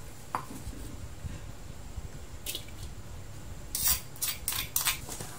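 A kitchen utensil scraping and knocking against a metal wok as pounded chilli, anchovy and lemongrass paste is put into it: a faint click, then a brief scrape midway, then a quick run of clinks and knocks near the end.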